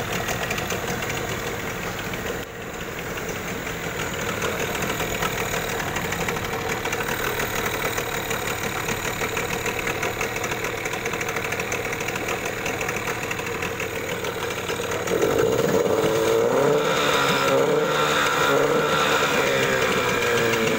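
Parsun 15 hp outboard motor running with its cowling off, a steady engine sound. About 15 seconds in it gets louder and revs up, its pitch rising and wavering.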